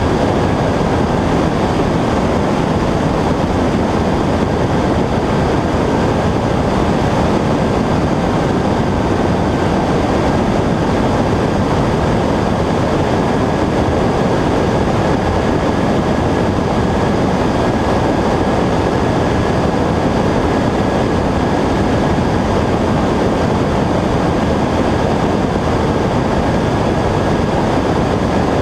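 Cessna 120 light airplane in flight: the steady drone of its four-cylinder engine and propeller mixed with rushing air, with a faint steady whine above it.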